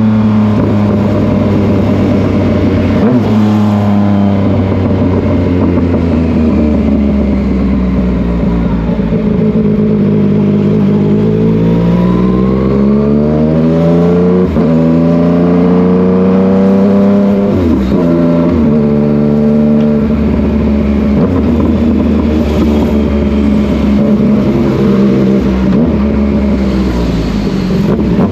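Yamaha MT-09 motorcycle's three-cylinder engine running, its pitch rising and falling for several seconds at a time, with sharp drops in pitch about 14 and 18 seconds in.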